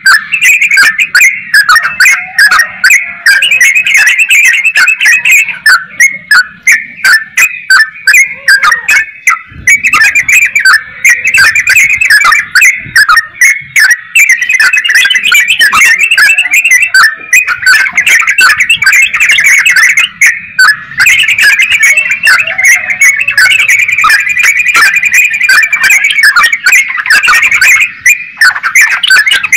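Yellow-vented bulbul (trucukan) singing in full voice: a loud, nearly unbroken run of fast chattering phrases packed with sharp clicking notes.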